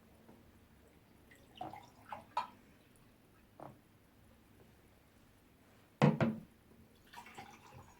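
Tableware handled on a table: a few light knocks and clinks, then a louder double knock about six seconds in, like a cup or pot being set down.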